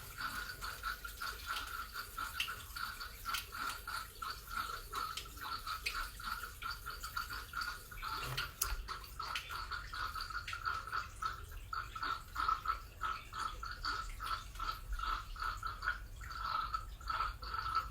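Water trickling out of a combi boiler's waterlogged expansion vessel as it is drained, an uneven, faint stream. The vessel has lost its air charge and filled with water.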